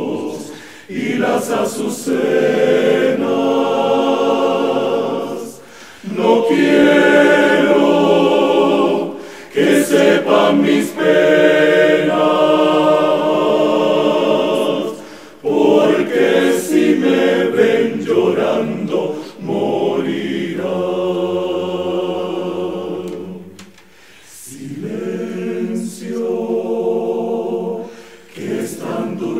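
Male choir singing a slow song a cappella, in long held phrases broken by short pauses for breath.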